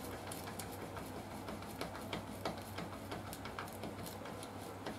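Scattered light clicks and ticks, irregular and a few a second, from hand work on a motorcycle's drive chain, over a steady low hum.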